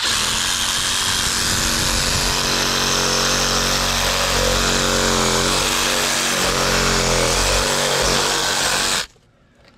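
Reciprocating saw running steadily as its blade cuts through a pumpkin's stem and rind. The motor pitch wavers a little under load, and the saw stops abruptly about nine seconds in.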